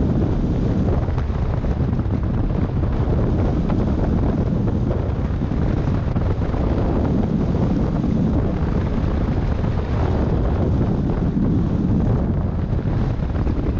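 Loud, steady wind rushing and buffeting over the microphone of a camera mounted on a hang glider in flight under aerotow.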